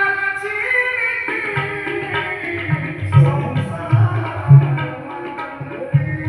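Kirtan music: deep hand-drum strokes, roughly one or two a second, under a sustained melody.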